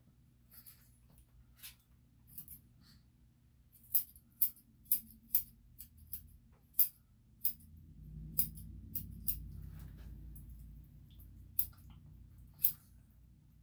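Grooming scissors snipping a dog's hair: a dozen or so sharp, irregular snips, some in quick pairs. A low rumble swells for a couple of seconds about eight seconds in.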